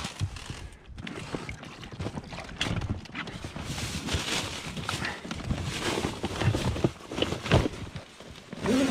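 Irregular knocks, bumps and rustling of gear being handled aboard an inflatable boat, with no engine running.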